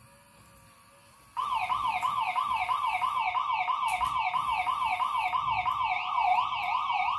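Electronic siren from the toy robot boat's buzzer: a fast up-and-down wail of about five sweeps a second, starting about a second and a half in.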